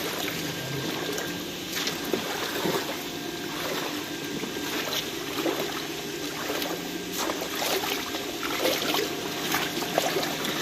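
Shallow pond water sloshing and trickling as a person wades through it sweeping electrofishing poles, over a faint low steady hum, with a few sharp clicks along the way.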